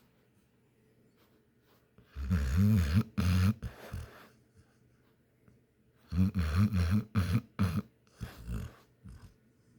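Pit bull snoring in two loud, rough bursts, one about two seconds in and a longer one about six seconds in, with quiet breathing between. The snores are uneven and sputtering, likened to a misfiring motor.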